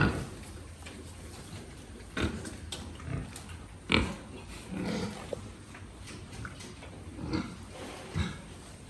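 Pigs grunting in short, irregular grunts, with a sharp knock about four seconds in.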